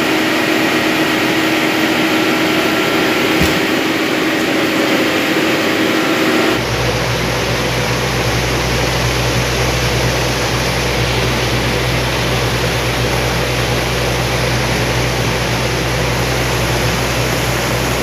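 Steady machinery hum inside an ice plant, with several held tones and a single click about three and a half seconds in. It changes abruptly about six and a half seconds in to a fibreglass cooling tower running: a steady low fan-motor hum under the rushing of water splashing out of its basin.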